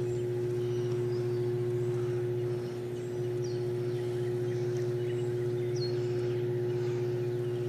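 Microwave oven running: a steady electrical hum with a constant higher tone over it.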